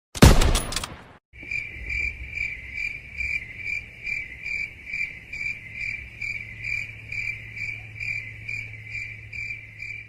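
A short loud hit in the first second, then crickets chirping steadily, about three chirps a second, over a low hum: the 'crickets' meme sound for an awkward silence.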